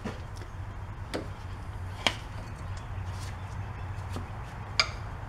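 A few sharp metal clicks and knocks, three in all, as a new rear shock absorber is compressed by hand and lined up with its lower mount on the axle, over a low steady hum.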